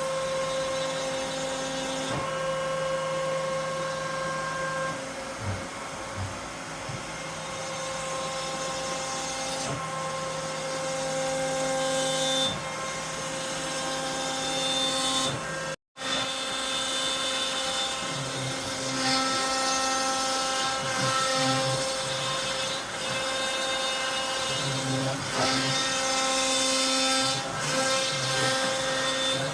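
CNC router spindle running with a steady high whine while the bit cuts wood; the lower cutting noise changes every few seconds as the tool moves. The sound cuts out for an instant just past halfway.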